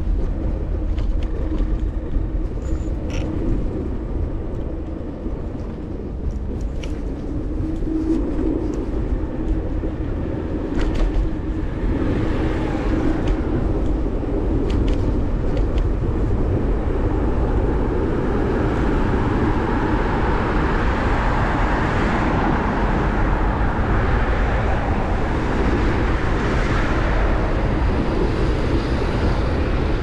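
Electric kick scooter ride: steady wind and road rumble on the mounted camera's microphone, with a few sharp clicks from bumps in the first half. From about halfway through, the hiss of passing car traffic grows.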